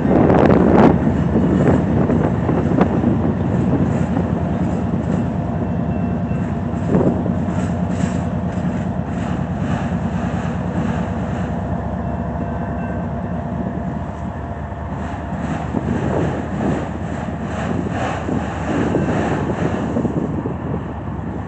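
Freight train passing close by: its diesel locomotives are loudest at the start and draw away, then autorack freight cars roll past with a steady rumble of steel wheels on the rails and scattered clicks.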